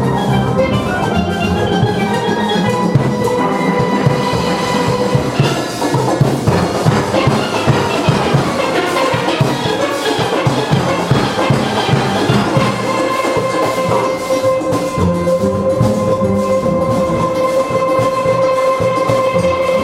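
Steelband playing: many steel pans sounding at once over a driving drum and percussion rhythm, with some long rolled notes near the end.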